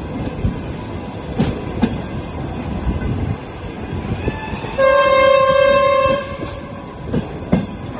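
Train horn sounding once, a single steady high note held for about a second near the middle. Underneath it is the rumble of a moving train heard from on board, with a few wheel clicks over the rail joints.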